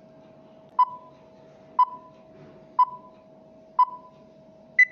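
Countdown timer sound effect: four short beeps one second apart, then a fifth, higher beep near the end, over a faint steady hum.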